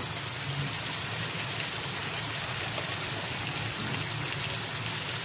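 Chicken and potato pieces sizzling in hot oil in a pan while about a cup of water is poured in from a bottle, a steady hiss with no break.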